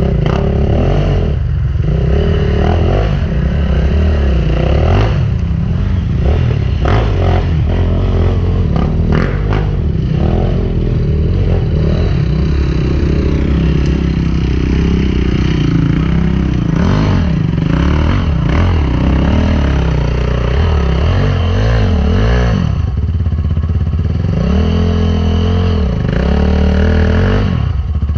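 Enduro dirt bike engine running under load, its pitch rising and falling with the throttle. Clattering knocks from the bike come through, thickest a few seconds in.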